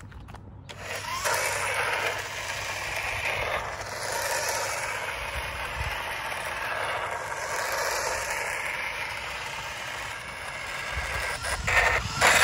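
Toy RC motorcycle driving on rough asphalt: a steady whirr of its small electric motor and gears with tyre noise, swelling and fading as it moves away and back. A couple of knocks near the end.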